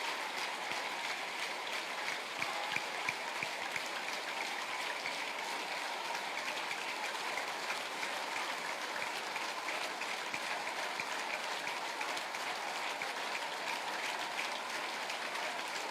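Congregation praying aloud all at once: a steady, indistinct wash of many voices that carries on without a break.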